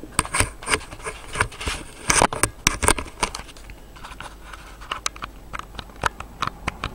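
Handling noise: irregular light clicks, taps and rustling as things are moved about by hand, busiest in the first three seconds and sparser after.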